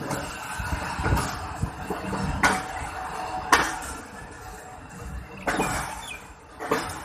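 Passenger train coaches rolling along the track: a steady rumble from the wheels, broken by a few sharp, irregularly spaced clunks as the wheels cross rail joints and points.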